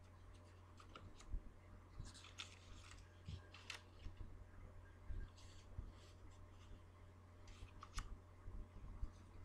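Stiff paper strips being folded in half and creased by hand: faint, scattered rustles and soft clicks, with strips set down on a wooden tabletop.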